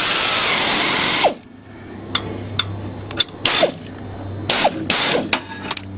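Pneumatic air ratchet running down the crankshaft bolt on a lawn tractor's engine. One long run of about a second comes first, then light clicks and three short bursts later on as the bolt is snugged tight.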